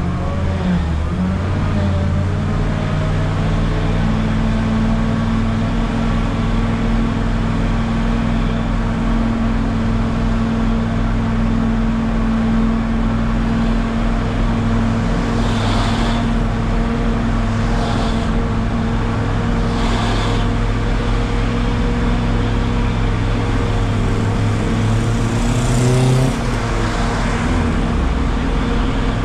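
Micro bus engine running steadily, heard from on board, with three short hisses in the middle and a brief change in engine note near the end.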